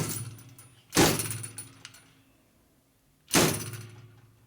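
Fork seal driver tool hammered down onto a motorcycle fork oil seal: three sharp metal-on-metal blows, one at the start, one about a second in and one just past three seconds, each ringing out. The seal is going in hard, which the mechanic puts down to chrome buildup in the bore.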